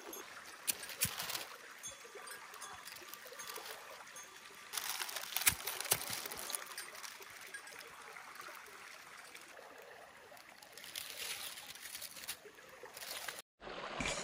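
A small stream running steadily, with scattered small clicks and crackles. The water swells louder for a couple of seconds around the middle.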